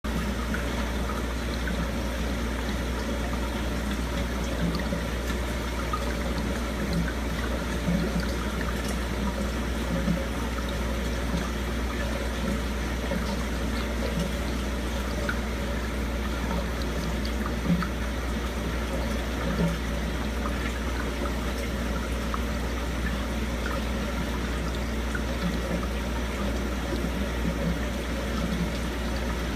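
Aquarium water circulating: steady trickling and gurgling over a constant low hum.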